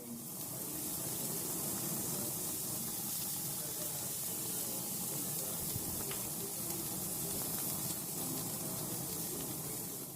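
Steady hissing noise that starts abruptly and stops near the end, a sound effect added over the footage.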